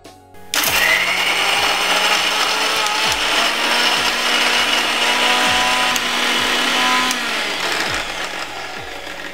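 Electric mixer-grinder motor switching on about half a second in and running at full speed, grinding chocolate and glucose biscuits to powder in its steel jar; the sound drops and tapers off after about seven seconds.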